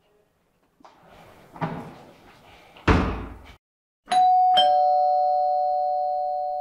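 A two-tone doorbell chime: a higher ding, then a lower dong about half a second later, both tones ringing on and slowly fading. Before it comes a couple of seconds of rustling noise with a louder swell.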